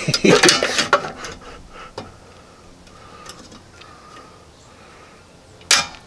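Small metal tools and thin wire clinking and scraping against the parts of an air compressor pressure switch as its spring is worked back into place: a busy burst in the first second, a few faint ticks, then a sharp metallic click near the end.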